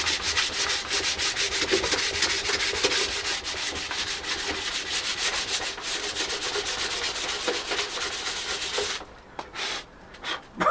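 Sandpaper rubbing over body filler on a car bumper by hand, in rapid back-and-forth strokes, about five a second. The sanding stops about nine seconds in, followed by a few short scrapes.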